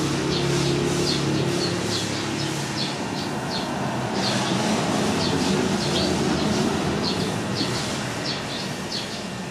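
Birds chirping in a rapid run of short, high chirps, a few a second, over a low, steady engine hum that fades after about three seconds.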